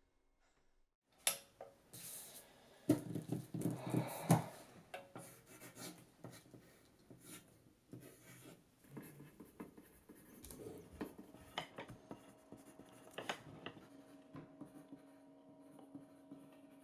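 Pencil writing on paper: irregular scratching strokes, loudest about three to four seconds in, then fainter. A faint steady hum comes in during the second half.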